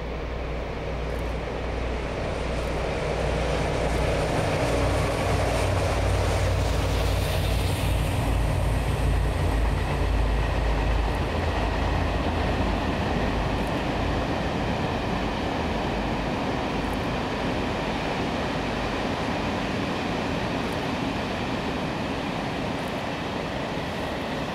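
A train passing close by, with a deep low hum that fades out about halfway and a faint high whine early on. A steady rolling rumble of the cars follows. It is loudest from about a quarter to halfway through.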